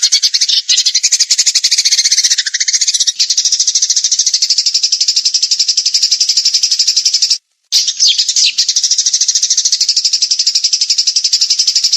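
Songbird singing a fast, unbroken run of high, rapidly repeated chirps. It breaks off for a moment about seven and a half seconds in, then resumes.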